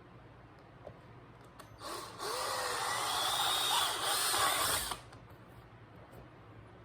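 Power drill boring a bolt hole through a new plastic motorcycle front fender, running for about three seconds with its pitch wavering as the bit cuts, then stopping abruptly.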